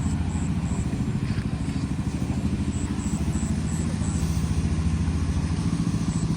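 An engine running steadily with a fast low pulsing, with short high pips repeating about three a second in short runs.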